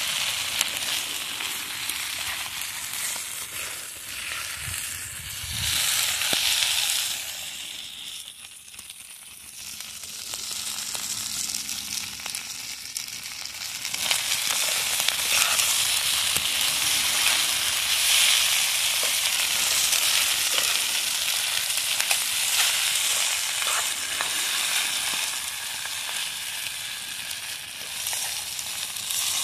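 Rice frying and sizzling steadily in a wide metal pan, stirred with a metal spoon. The sizzle dips for a couple of seconds about a third of the way in, then comes back louder.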